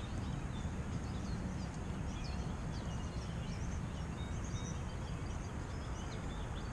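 Steady rushing noise of flowing stream water, with small birds chirping repeatedly high above it.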